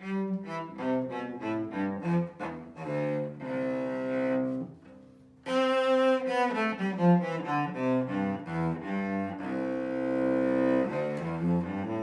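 New, not yet played-in Kallo Bartok cello (Stradivari pattern, Larson and Spirocore strings) played solo with the bow: a melodic passage of separate held notes. The playing breaks off for about half a second a little before halfway, then resumes.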